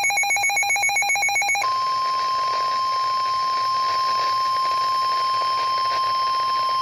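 A rapidly pulsing electronic alarm beep from a weather radio cuts off about one and a half seconds in. It gives way to the steady single-pitch 1050 Hz NOAA Weather Radio warning alarm tone over radio hiss, the signal that a new warning is about to be broadcast.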